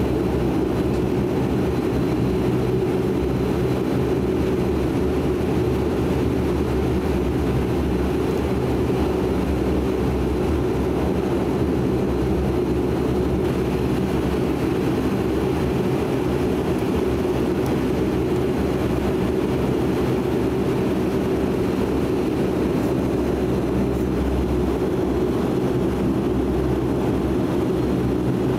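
Cabin sound of a De Havilland Canada Dash 8-400's turboprop engines and propellers running at steady low power while the aircraft taxis: a constant propeller drone with a steady hum over a low rumble.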